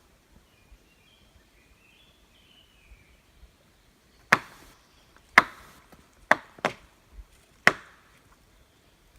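Five loud wood knocks, wood struck hard against a tree: two single knocks about a second apart, a quick pair, then one more, each ringing briefly. This is a knock signal of the kind used in Bigfoot calling. A bird chirps faintly in the first few seconds.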